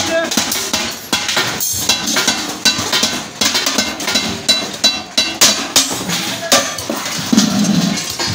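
A hammer striking a galvanized steel bucket and the steel band being fitted around its rim: an irregular run of sharp metallic knocks with some ringing.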